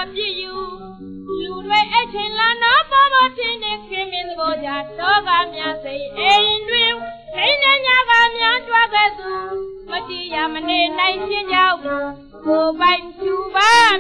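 A woman singing a Burmese song in a high voice, with long wavering held notes, over instrumental accompaniment, played from a 1940 His Master's Voice 78 rpm record.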